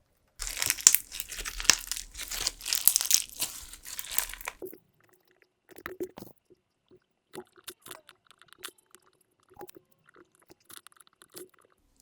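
Clear slime packed with sugar beads being squeezed and pressed by hand: dense, crunchy crackling for about four seconds. Then comes a few seconds of quieter, scattered small clicks and soft taps.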